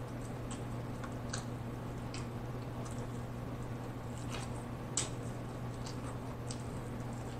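Wet chewing and lip smacks of someone eating fried chicken wing meat off the bone: a scattering of short, sharp smacks, the sharpest about five seconds in. A steady low hum runs underneath.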